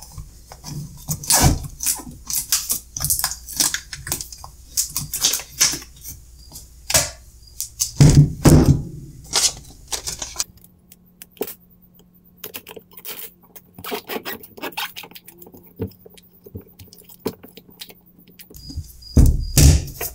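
Clear plastic film crinkling and rustling as it is handled around a pack of two sealed lead-acid batteries, with scattered clicks and a louder handling knock about eight seconds in. A quieter stretch in the second half has a faint steady hum under sparse clicks.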